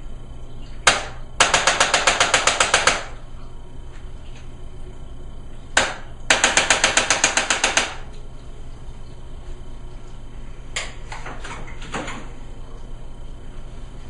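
Chiropractic adjusting equipment clicking. A single sharp click sets off a run of rapid mechanical clicks, about ten a second for a second and a half. The same pattern repeats once, and a few scattered clicks follow near the end.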